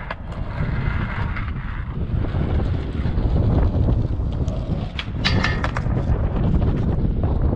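Skateboard wheels rolling on rough concrete, a low rumble that grows louder about two seconds in as the board comes nearer. A quick cluster of sharp clacks from the board about five seconds in.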